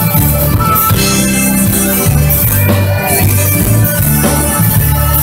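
Southern Italian folk band playing live through a PA: a steady drum-kit beat under a moving bass line and melody instruments.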